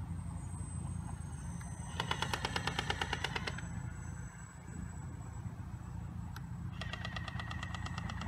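Airsoft cannon on a radio-controlled AC-130 gunship model firing two rapid bursts, one about two seconds in and one near the end, each about a second and a half long. Under it, the steady low drone of the model's propellers.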